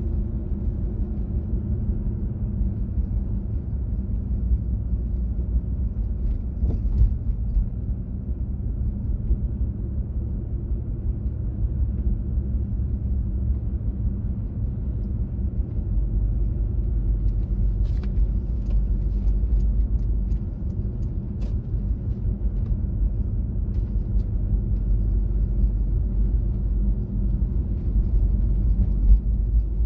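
Car driving at a steady pace: a constant low rumble of engine and road noise, with a few light clicks just past halfway.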